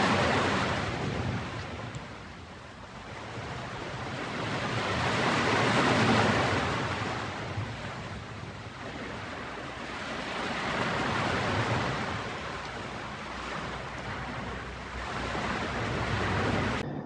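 Ocean surf breaking on a beach: a rushing hiss that swells and fades about every five seconds, cutting off abruptly just before the end.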